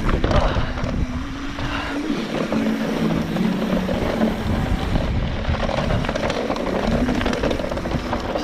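Wind buffeting the microphone over the rumble and rattle of a mountain bike's tyres and frame running down a dry, rocky dirt trail.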